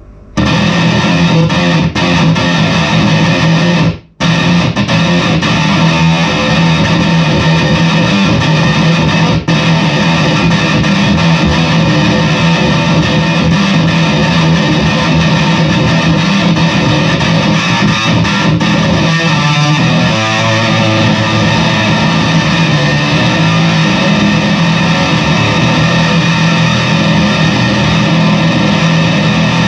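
Squier Bass VI, a six-string bass, played through a fuzz pedal: a thick, heavily saturated sustained fuzz tone with one brief break about four seconds in.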